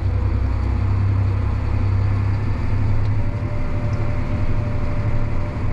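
Farm tractor's diesel engine running steadily under load, heard from inside the cab as a constant low drone.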